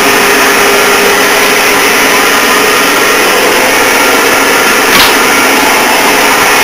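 Old turret lathe running under power from a 2 hp Brook single-phase motor: a loud, steady mechanical whirring of the drive, with a single sharp knock about five seconds in.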